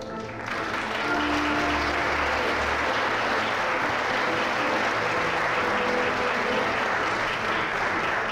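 Audience applause breaking out about half a second in, just after the orchestra's final chord dies away, then continuing steadily and densely.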